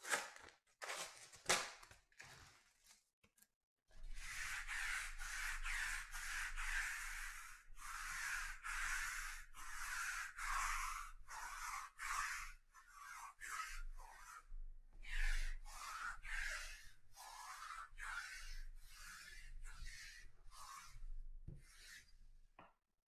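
Trading-card packaging being opened by hand: a few sharp clicks, then a long run of rasping, tearing strokes of plastic and foil wrapping, roughly one a second.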